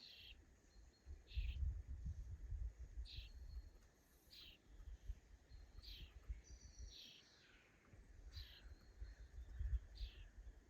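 A songbird repeating a short, high call about once every second and a half, with one longer, slurred phrase about seven seconds in, over a faint, uneven low rumble.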